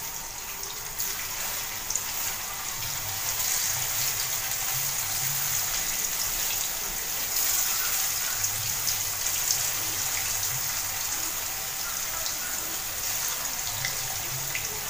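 Paneer cubes frying in hot oil in a kadai: a steady sizzling hiss with fine crackles.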